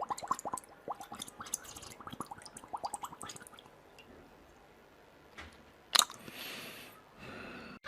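A quick run of small wet clicks and smacks, fading out after about three and a half seconds, then one sharp click about six seconds in followed by a brief hiss.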